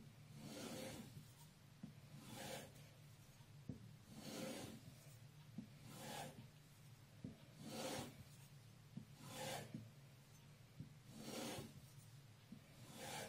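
A VG10 nakiri knife blade drawn along a leather strop in soft, even swishing strokes, about one every two seconds, over a faint steady hum. This is stropping after the whetstones, to refine the edge to push-cut sharpness.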